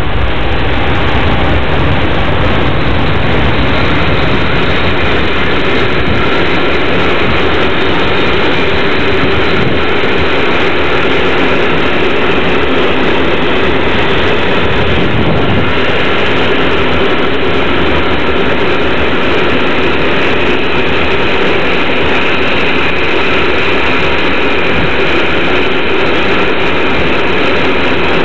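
Freight train of covered coal wagons passing close by behind SNCB class 13 electric locomotives: a loud, steady rolling noise of wheels on rail.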